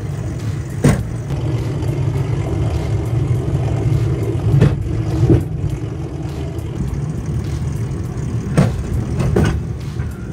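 Steel wheels of a rail bike rolling along the track with a steady low rumble, clacking over rail joints once and then twice in pairs.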